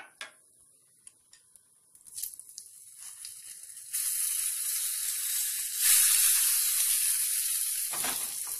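Hot ghee tadka of cumin, asafoetida and red chilli powder poured from a small pan onto cold yogurt raita, sizzling. A few faint clinks come first. The hiss starts suddenly about halfway in, grows louder a couple of seconds later, then dies away near the end.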